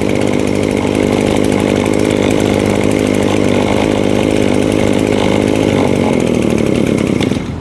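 Two-stroke 23cc Maruyama brush cutter engine running steadily, then cut off near the end.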